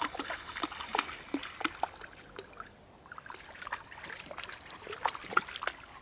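Lake water splashing and trickling in the shallows at the shore, in short irregular splashes with a brief lull about halfway through.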